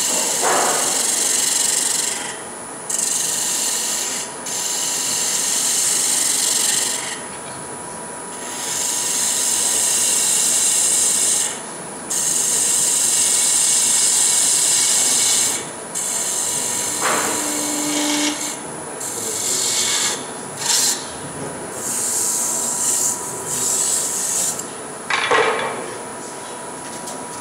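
Turning tool held against wood spinning on a lathe, a hissing scrape in passes a few seconds long with short breaks between.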